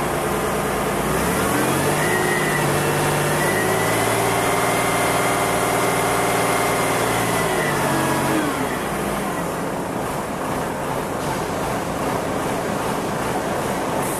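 Engine of the crane or hoist lifting a bronze statue on slings revs up about a second in, holds steady for several seconds, then drops back to idle past the middle, leaving a steady low rumble.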